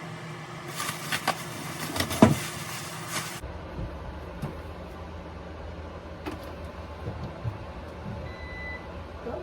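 Packaging being handled during the unboxing of an air fryer: rustling with sharp clicks and knocks for the first few seconds, the loudest about two seconds in. Then a low hum with a few faint ticks, and a short high beep near the end.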